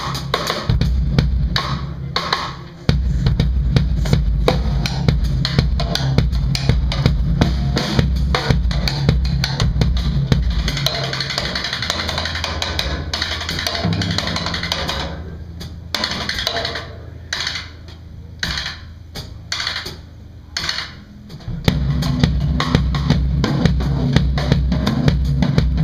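Live band playing a jump swing tune, driven by a Pearl drum kit with cymbals and a bass line. Around the middle the bass drops away and the drums play short breaks with gaps between them, then the full band comes back in near the end.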